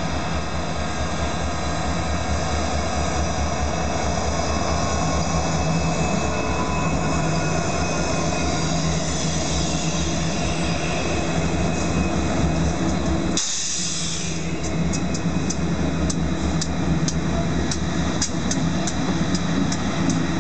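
Union Pacific EMD SD70M diesel locomotives, with 16-cylinder two-stroke engines, passing close by under power: a steady, deep engine rumble that grows a little louder as they come by. There is a short hiss about thirteen seconds in, and rapid clicking in the last few seconds.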